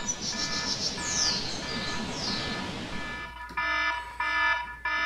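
Birds chirping, then an alarm beeping loudly in three evenly spaced pulses from about three and a half seconds in, as a wake-up alarm.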